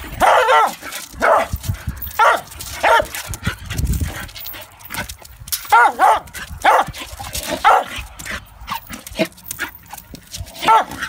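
A dog barking: about ten short, fairly high barks at irregular spacing, some coming in quick pairs.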